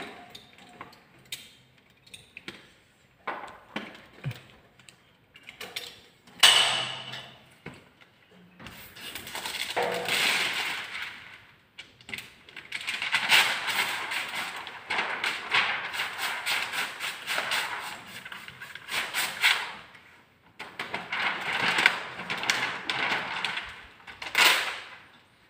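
Hand trigger spray bottle squirting water onto window tint film on glass, pumped in quick runs of hissing squirts, with a few single sprays between.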